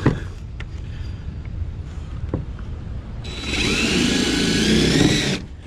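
A cordless power driver runs for about two seconds, starting about three seconds in, driving a mounting screw; its whine rises slightly in pitch as it goes. Before it there are low handling knocks and rustling.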